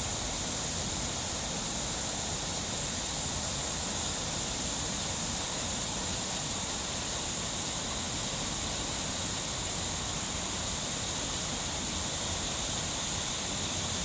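River water rushing steadily over rocks in small cascades.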